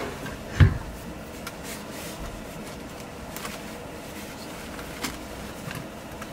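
One low thump about half a second in, then rustling of bedding and clothes with scattered light knocks, as people move about a camper van's overhead bunk and bed and handle the bedding.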